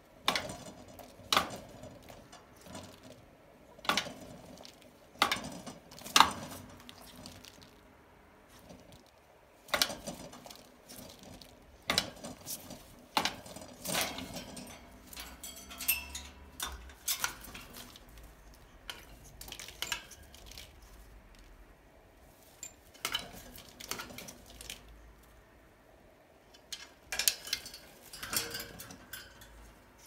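An African grey parrot, wet from a bath, thrashes and flaps in its metal cage, knocking against the bars and the plastic bowls. The result is irregular, clattering knocks and rattles.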